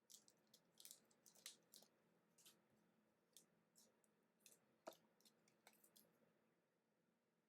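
Faint, scattered soft clicks and rustles of trading cards being handled and flipped through, with near silence between them.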